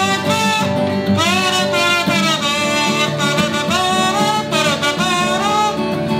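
Acoustic guitar strummed in a steady rhythm under a kazoo playing a melody whose notes slide and bend.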